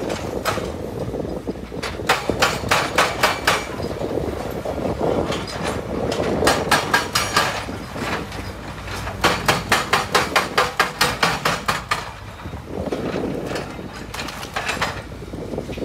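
Komatsu PC300 hydraulic excavator working, its diesel engine running under three runs of rapid, evenly spaced metallic clanking, each lasting one to three seconds.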